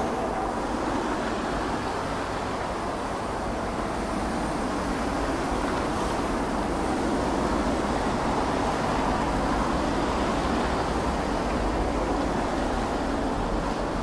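Steady rumble of distant road traffic, with no bird calls standing out.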